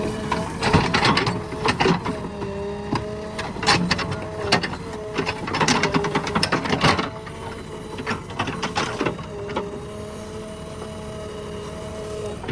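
JCB 3DX backhoe loader at work, its engine and hydraulics giving a steady whine that dips and rises slightly with load. Over this run repeated bursts of clattering and knocks, most of them in the first half.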